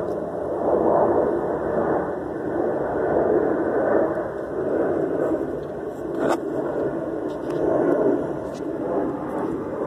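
Uneven rustling and rubbing noise from the phone being handled and brushed against plant leaves, swelling and fading, with one sharp click about six seconds in.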